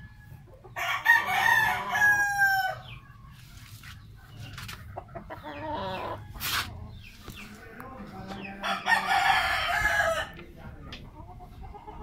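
Rooster crowing twice, each crow lasting about two seconds, with a single sharp click between the two crows.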